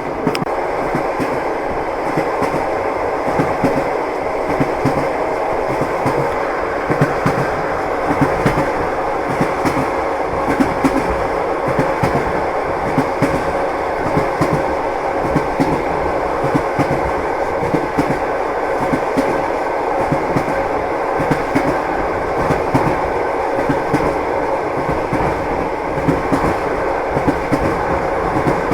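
Train running steadily, a constant rumble with the wheels clattering over the rail joints in a continuous stream of sharp clicks and knocks.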